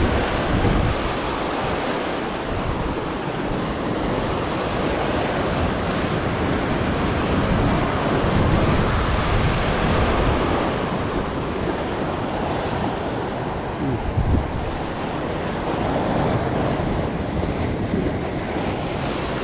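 Ocean surf breaking and washing against rocks, a steady rush of water, with gusts of wind buffeting the microphone.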